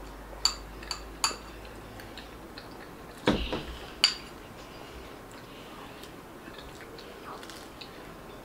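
Metal spoon clinking several times against a small ceramic bowl. About three seconds in there is a heavier knock as a glass mug is set down on the table, then another ringing clink.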